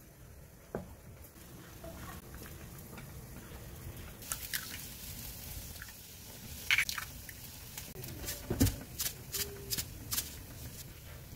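A knife taps once on a wooden cutting board, then eggs are cracked into a black earthenware pot and a metal fork clicks against the pot as the eggs are stirred. The result is a scatter of sharp clicks and taps, with one dull thump a little past the middle.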